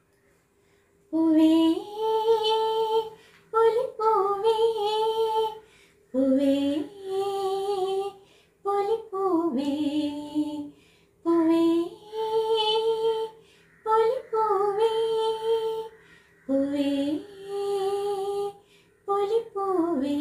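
A woman singing a slow song alone, with no accompaniment, in short phrases of a second or two, each ending on a long held note, with brief pauses between them.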